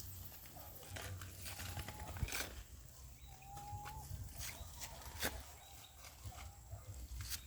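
Goat herd's hooves clicking as the goats walk, with one short thin call about three and a half seconds in.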